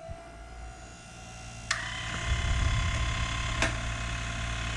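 Woodland Mills Grindlux 4000 sawmill blade sharpener switched on: its motors start and run with a steady hum and whine. A sharp click about a second and a half in brings more whine, and another click comes near the end. The wheel is not yet grinding the blade.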